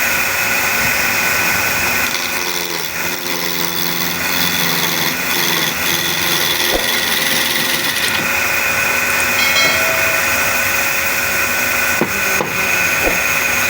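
Wood lathe running, a steady motor whine over a noisy hiss.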